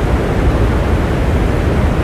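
Steady, unbroken rain noise, an even hiss that is heaviest in the low range, with no single drops or other events standing out.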